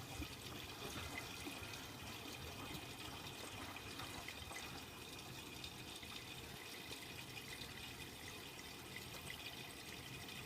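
Miele W Classic WDA110 washing machine with a faint, steady sound of water running into its drum.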